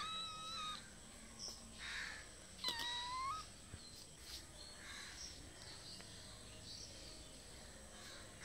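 A kitten mewing twice: a short high-pitched mew at the very start and another, rising in pitch, about three seconds in. It is a kitten's frightened crying at having to climb down a tree.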